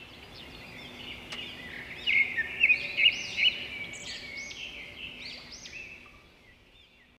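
Birds chirping and whistling in quick, arching calls, loudest about two to three and a half seconds in, then fading out near the end, over a faint low hum.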